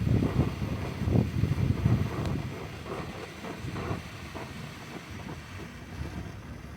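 Wind buffeting the microphone in gusty low rumbles, strongest in the first two seconds, then easing.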